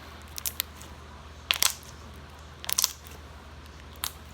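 Slime being squeezed and poked by hand, giving off sharp little pops and clicks in short clusters: a couple near the start, a louder pair about a second and a half in, a quick run of them near three seconds, and one more near the end.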